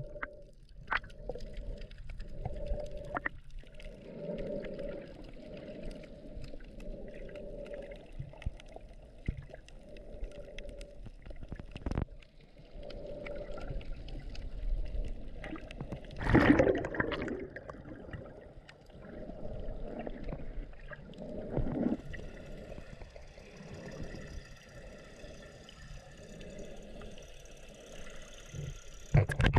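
Muffled water heard underwater: a continuous churning wash with gurgling and small clicks, and one louder rush of water a little past halfway.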